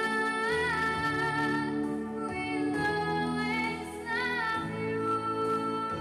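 A teenage girl singing solo into a microphone over instrumental accompaniment, with long held notes that waver in vibrato about half a second in and again about four seconds in.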